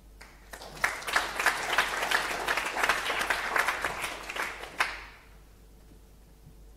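Audience applauding at the end of a talk: clapping starts about half a second in, runs for about four seconds and dies away near five seconds.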